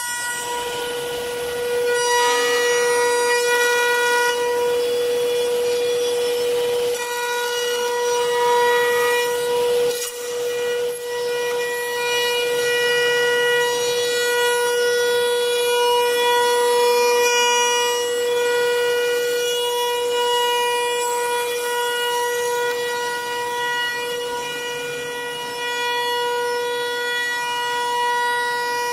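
High-speed milling spindle of a CNC wood lathe running with a steady, high-pitched whine, with a rougher cutting sound from the bit on the wood over it.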